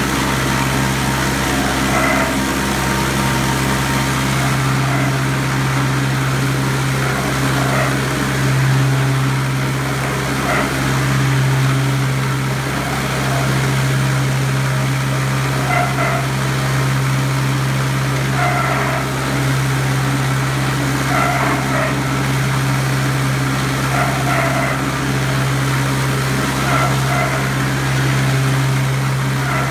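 Industrial bowl cutter running steadily as its rotating bowl and blades chop liverwurst mass, with a deep, constant motor hum. Brief higher-pitched sounds come every couple of seconds over the hum.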